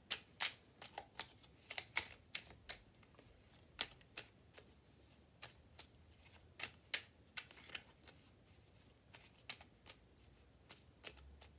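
A deck of oracle cards being shuffled by hand: quiet, irregular snaps and rustles of the cards, coming in quick clusters with short pauses between them.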